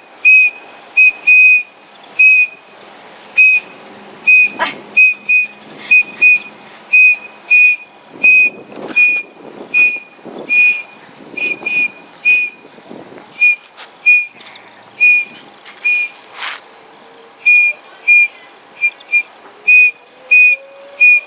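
A small toy whistle blown by a child in many short, sharp toots at one high pitch, in quick uneven runs.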